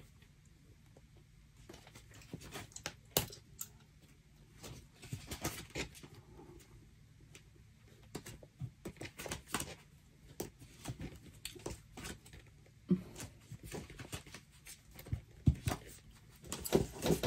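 Photos and papers being handled and sorted by hand: scattered light clicks, taps and short rustles at uneven intervals.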